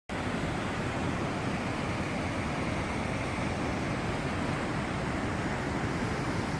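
Steady rushing of river water, with a low rumble of wind on the microphone. It starts abruptly at the beginning.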